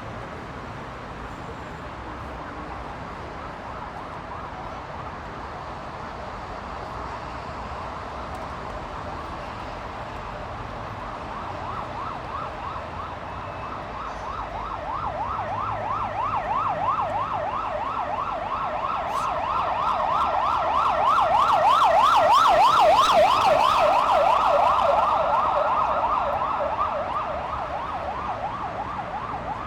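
Ambulance siren in a fast yelp, rising and falling several times a second. It grows louder as the vehicle approaches, is loudest about three quarters of the way through, then fades as it moves off. A steady rumble of heavy road traffic runs underneath.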